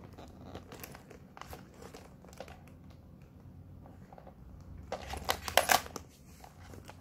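Handling noise from a white leather Coach Mini Swagger handbag being turned over: leather and fabric lining rustling with small clicks, then a louder burst of crackling clicks about five seconds in.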